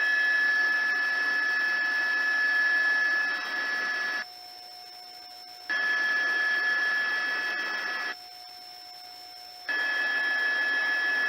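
Police helicopter cabin noise heard through the crew's radio intercom: a steady hiss with a high whine. It cuts off abruptly twice, for about a second and a half each time, as the open mic drops out.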